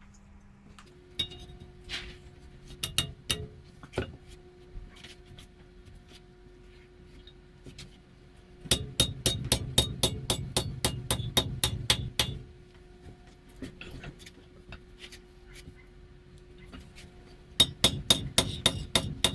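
Hammer striking hot car-spring steel on an anvil: a few scattered blows, then two quick runs of strikes at about five a second, the first starting about nine seconds in and the second near the end.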